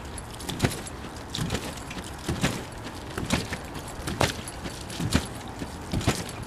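A person bouncing on a wet trampoline: the mat thuds and splashes with each landing, about once a second, seven times in a steady rhythm. A steady hiss of rain runs underneath.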